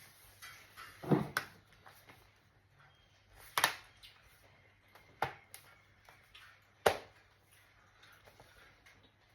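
Sharp clicks and knocks from handling a laptop's hardware, about five of them spread over several seconds. The first comes with a dull thump.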